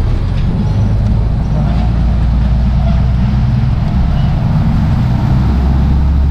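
Canal passenger boat's engine running with a loud, steady low drone, the note shifting slightly about four seconds in.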